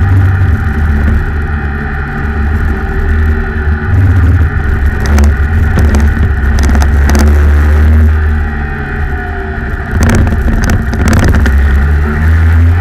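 Rotax Max 125cc two-stroke kart engine heard onboard at racing speed, its revs climbing and dropping as the kart accelerates and lifts off for corners, with a dip about eight seconds in before it picks up again.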